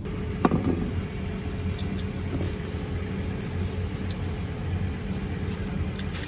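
Steady low engine hum, with a sharp clink about half a second in and a few light clicks as a knife slices small fruits by hand over a steel tray.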